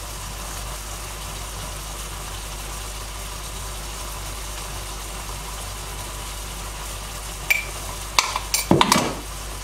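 Fish masala gravy simmering in a pan with a steady soft sizzle. Near the end come a few sharp knocks.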